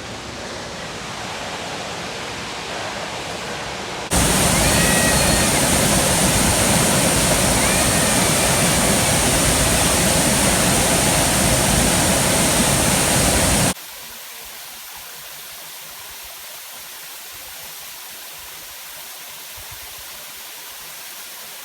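Waterfall rushing steadily. The sound changes level abruptly twice: moderate at first, much louder for about ten seconds from roughly four seconds in, then softer.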